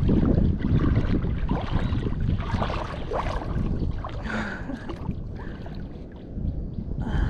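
Wind rumbling and buffeting on the microphone over the wash of surf, with faint voices now and then.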